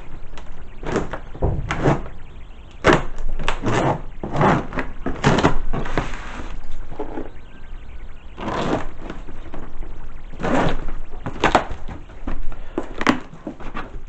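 Packing tape being ripped off a cardboard shipping box in a string of irregular tearing pulls, with cardboard rustling as the box flaps are folded open.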